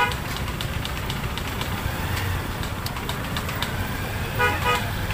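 Short beeps of a small motorcycle horn, one right at the start and two quick ones near the end, over the low steady running of an engine.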